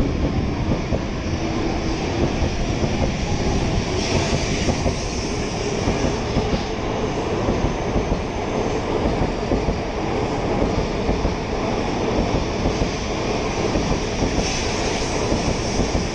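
Steady, dense rumble and hum of trains at a Shinkansen station platform.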